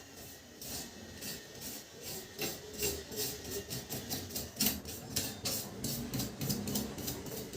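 Quick repeated scraping and rubbing strokes on a printer part, dirt being scraped and wiped off during a repair.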